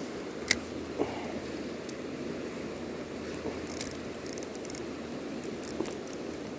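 Steady rush of flowing river water, with a few sharp clicks and rustles from the phone being handled close to the microphone, the loudest about half a second and one second in, and a cluster of short ticks a little past the middle.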